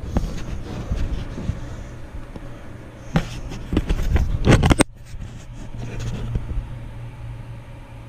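Steady low hum of a running ClimateMaster geothermal heat pump and its blower. About three to five seconds in, a burst of knocking and scraping from handling at the insulated ductwork stops suddenly.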